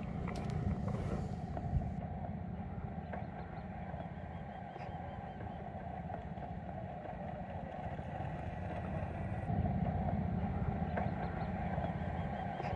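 Steady engine rumble running without a break.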